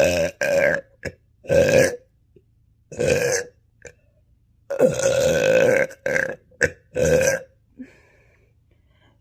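A woman burping hard, again and again: about ten burps in a row, some short and clipped, others drawn out, the longest lasting about a second.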